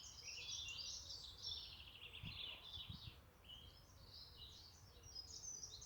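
Several small birds chirping and twittering continuously, faint, over a low steady background rumble.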